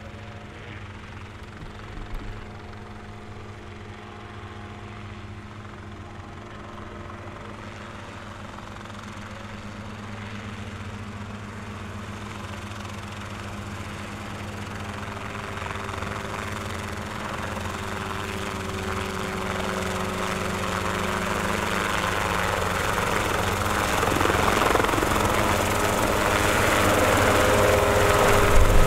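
Small light helicopter's engine and rotor running in a low hover, growing steadily louder as it comes closer.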